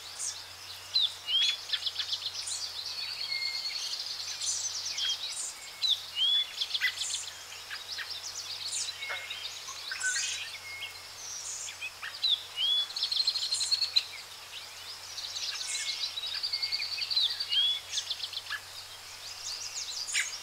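Songbirds chirping and singing: short sharp chirps, rapid trills and short slurred whistles, the same run of calls coming round again about every twelve seconds, over a faint low hum.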